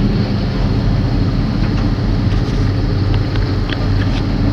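Airman mini excavator's diesel engine running steadily at a constant speed, with a few faint ticks and knocks in the second half.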